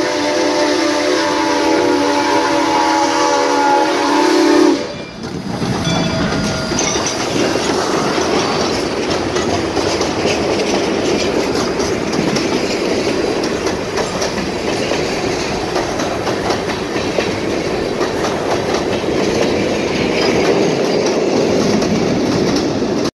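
Soo Line 1003's steam whistle (the engine is a 2-8-2 Mikado locomotive) blows one long multi-tone chord, which cuts off about five seconds in. Then the locomotive and its freight cars roll close past with a loud, steady noise of wheels on the rails.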